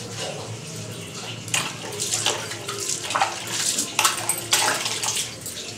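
Water splashing on a baby being bathed: a run of irregular splashes and pours that starts about a second and a half in.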